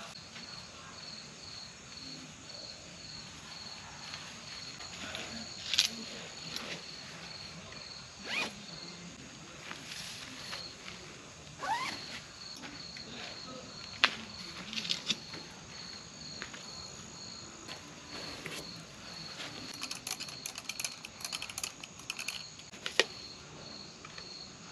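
An insect chirping steadily, a high pulse repeating about three times a second, over scattered sharp snaps and crackles from wood burning in a fire pit. The loudest snaps come a few seconds in and in the middle, and a quick run of crackles comes near the end.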